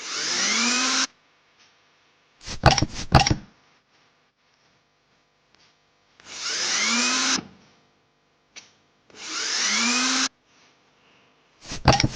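Power drill whirring in three bursts of about a second each as screws are driven into the rails, with two quick clusters of sharp clanks in between.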